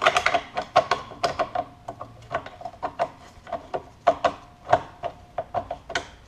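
Steel dust cover of an AK-pattern rifle being worked and pressed onto the receiver: a string of irregular metallic clicks and taps, many with a short ring.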